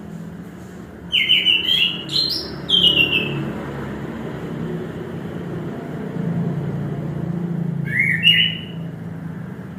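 Chestnut-capped thrush (anis kembang) singing: a run of quick, stepped whistled notes about a second in, then a shorter phrase near the end. A steady low hum continues underneath.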